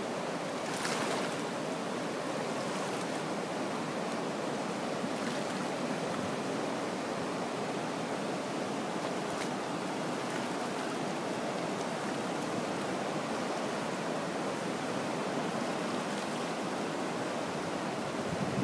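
Steady rush of flowing river water along a rocky shore.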